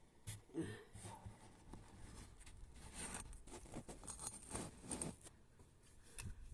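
Faint handling noise: scattered light rustles, scrapes and clicks.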